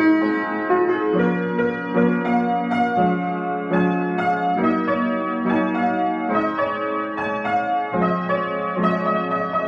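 Upright piano played by hand: chords and melody notes struck in a steady, flowing pattern over held low notes.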